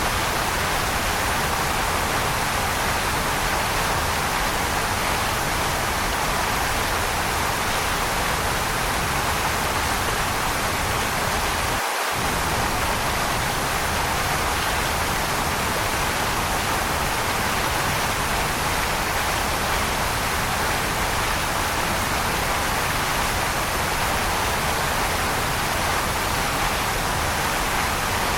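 Waterfall rushing steadily, an even hiss of falling water with no separate splashes. The low rumble drops out for an instant about twelve seconds in.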